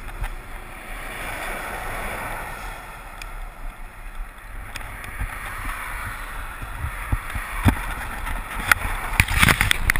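Wind rushing over a handlebar-mounted camera with tyre rumble from a bicycle on tarmac. Sharp knocks and rattles come in from about seven seconds in, loudest near the end.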